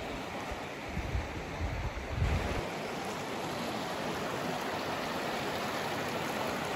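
Steady rush of flowing river water, with a low rumbling on the microphone for about the first two and a half seconds.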